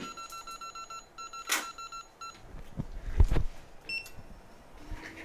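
Rapid electronic beeping in short bursts, about six or seven beeps a second, followed by a few heavy handling thumps and a click. Near the end the hot-air rework station's blower starts with a steady low hum, on low airflow for desoldering a capacitor.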